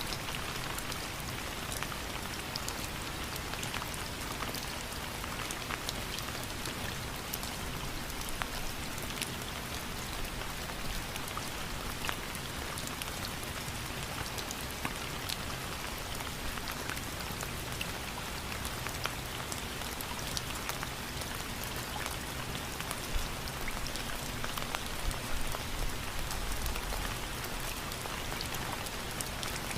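Steady rain falling, an even hiss with many sharp drop impacts ticking through it.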